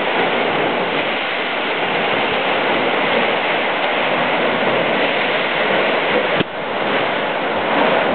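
Lake Superior water surging and churning in a narrow rock chasm, a steady rushing sound, with a brief click about six seconds in.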